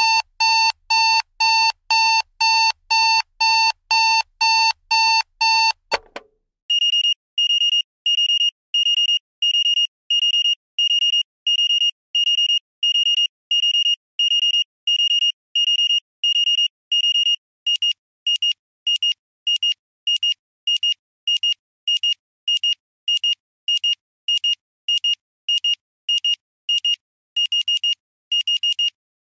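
Digital alarm clock beeping in a rapid electronic pattern, first in a lower pitch about three times a second. After a short click about six seconds in, a higher-pitched beep sounds about twice a second. Near eighteen seconds this turns into quicker, uneven beeping.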